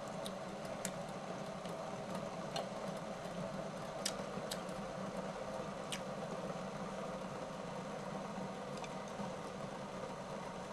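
Chopsticks picking rice from a bowl and a mouthful being chewed, with a few faint light clicks, over a steady low hum.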